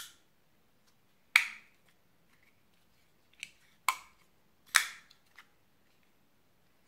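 Ganzo G7522 folding knife blade flicked open and snapped shut, making a series of sharp metallic clicks as it locks open and closes. Three of them are loud, about a second and a half in and around four and five seconds in.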